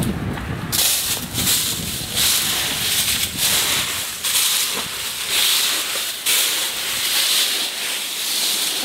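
Footsteps through a deep layer of dry fallen leaves, a crunching rustle that comes in even pulses about once a second.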